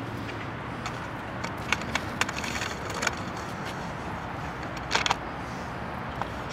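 Steady outdoor street and traffic noise, with a handful of short sharp clicks and rattles around two to three seconds in and a louder pair about five seconds in.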